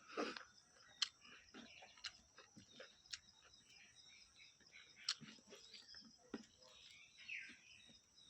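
Faint close-up eating sounds: a person chewing, with soft wet mouth noises and a few sharp clicks and smacks at irregular intervals.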